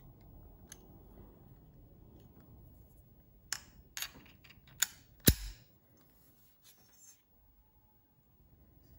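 Sharp metal clicks of an Allen key on the mounting screw of a metal L bracket under a camera body: a few faint ticks, then four clicks a little over three seconds in, the last the loudest, a knock.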